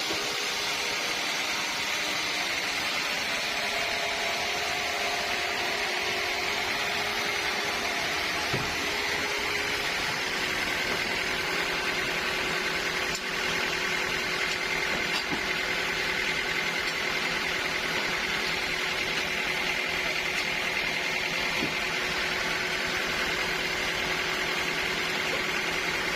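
Sawmill saw running steadily, a continuous machine noise with a faint high whine.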